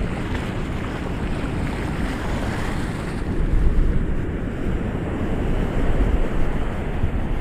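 Ocean waves washing on the shore, a continuous rushing surf with heavy low rumble, swelling a little about halfway through and again near the end.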